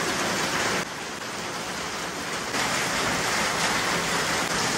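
Steady rain falling, an even dense hiss of water, briefly quieter for a second or two about a second in.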